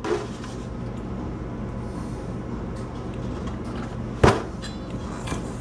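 A plastic gallon milk jug knocking once, sharply, against the countertop about four seconds in, over a steady low hum.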